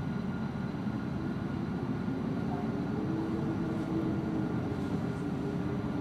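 Steady low rumbling ambient noise with a faint, even hum above it and no distinct events.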